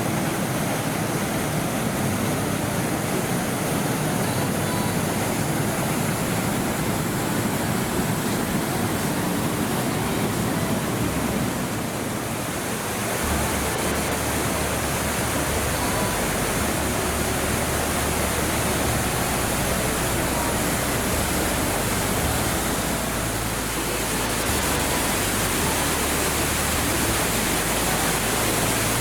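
Waterfall: the steady, loud rush of a mountain stream's cascade, with a deeper rumble coming in about halfway through.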